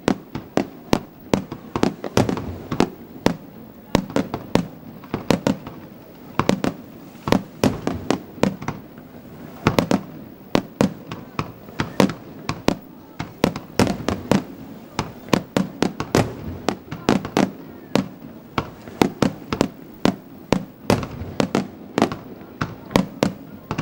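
Aerial fireworks display: a rapid, unbroken barrage of shell bursts, several sharp bangs a second, with a low rumble between them.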